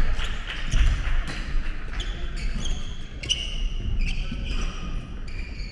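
Badminton doubles rally: sharp racket strikes on the shuttlecock, sneakers squeaking on the wooden court floor and footfalls as the players shuffle and lunge.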